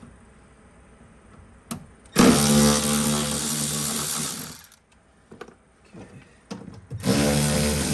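Power drill spinning a 10mm socket to back out the bolts holding a factory door speaker, in two runs: a quick rise in pitch then a steady whine about two seconds in, a few small clicks, and a second run starting near the end.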